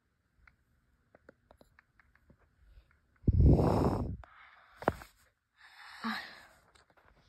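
A person's breath and phone-handling noise close on the microphone: scattered light clicks and rustles, then a loud breath blast on the mic about three seconds in, a sharp click, and a softer exhale near the end.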